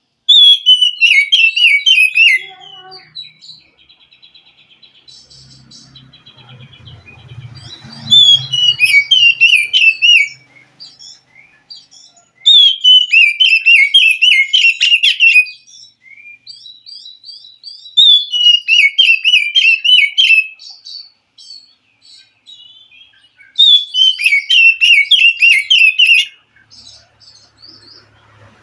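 Oriental magpie-robin singing: loud bouts of rapid, falling, warbled phrases about every five seconds, with softer notes between them.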